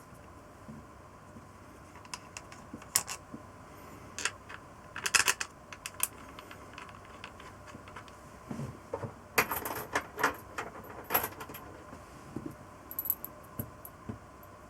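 Metal tools and small metal parts clinking and tapping in scattered clusters, busiest about five seconds in and again around ten seconds in.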